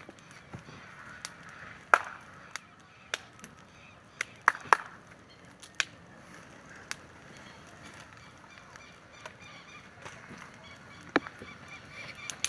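Small wood campfire crackling, with irregular sharp pops and snaps over a faint hiss.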